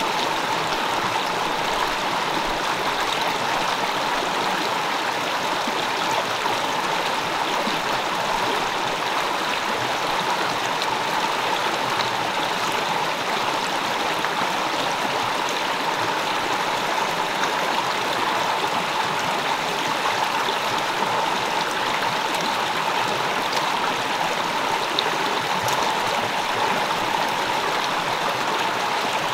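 Forest stream running over rocks: a steady, unbroken rush of water.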